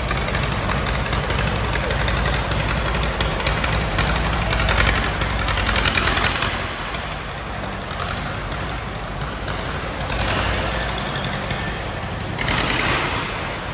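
Vintage tractor engine running at low speed with a low, rhythmic chugging, which weakens after about six or seven seconds. Louder bursts of hiss come around the middle and again near the end.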